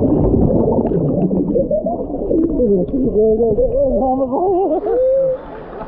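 Muffled, gurgling water sound from a camera held under the water, with warbling, wavering voice-like tones that swing up and down in pitch, stopping suddenly near the end.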